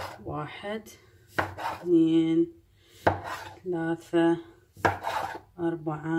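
Large kitchen knife chopping through bread dough and knocking on the worktop, three sharp strokes about a second and a half apart, with short steady tones between the strokes.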